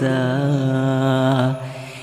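A man's voice chanting an Acehnese panton verse, holding the last syllable of a line as one long, slightly wavering note that fades away near the end.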